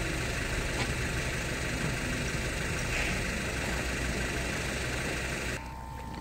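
Moored fishing boat's engine idling with a steady low rumble; it drops away abruptly near the end to a quieter background.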